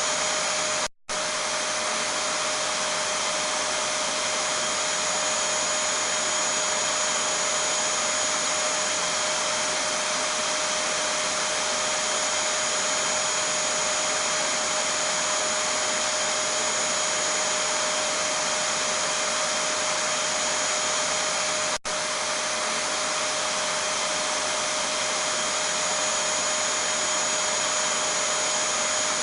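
Vacuum cleaner running steadily: an even rushing noise with a steady whine, played as white noise to soothe a baby to sleep. It cuts out for an instant about a second in, and again very briefly later on.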